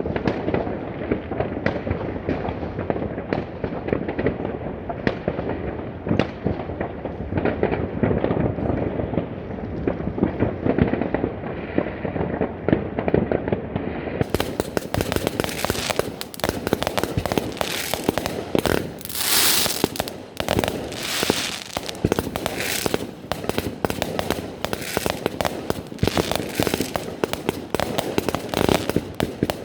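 Fireworks: a dense, continuous barrage of many bangs and crackles overlapping one another. About halfway through the sound turns brighter and crisper.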